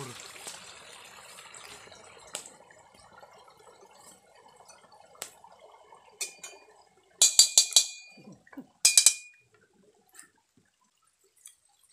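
A metal spatula striking a wok over a wood fire: a quick run of ringing metallic clanks about seven seconds in and a second short cluster about nine seconds in. Before that, a faint liquid pouring sound fades out over the first few seconds.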